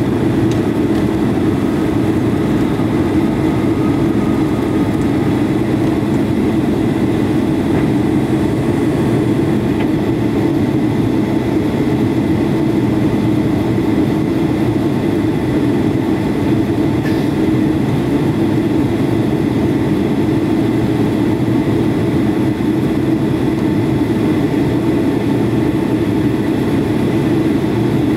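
Jet airliner cabin noise through the takeoff and initial climb: the engines and rushing air make a loud, steady rumbling hum, heard from inside the cabin at a seat over the wing.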